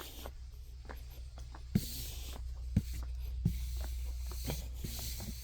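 Indoor room tone with a steady low hum, broken by scattered light clicks and rustling handling noise.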